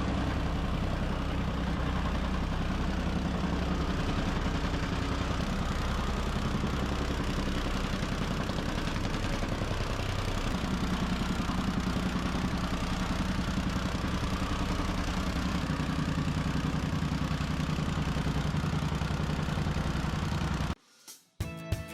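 Gas-powered soil compactor running steadily while compacting road base, ending abruptly near the end.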